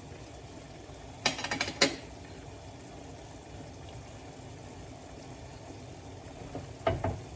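Chicken and pineapple simmering in a pan with a steady low bubbling hiss. A cooking utensil clinks against the pan in a quick run of strikes about a second in, and knocks a couple of times near the end.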